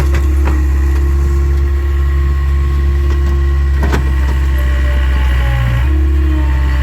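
Takeuchi TL26 skid steer's diesel engine running steadily, with a sharp knock about four seconds in and a shift in the engine note just before the end.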